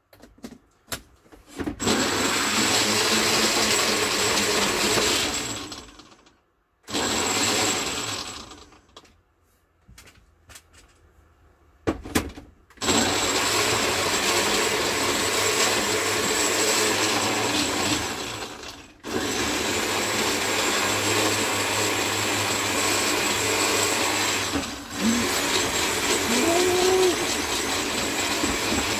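Countertop blender running in stop-start runs, blending a beetroot, pineapple and banana smoothie. A few short pulses come first, then runs of several seconds with brief pauses. A handful of sharp clicks falls in a quiet gap about ten seconds in.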